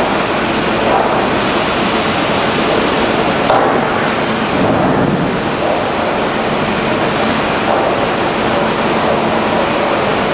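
Hydraulic iron roughneck making up drill pipe on a drill floor, heard as a loud, steady machinery roar with a few brief swells around the middle.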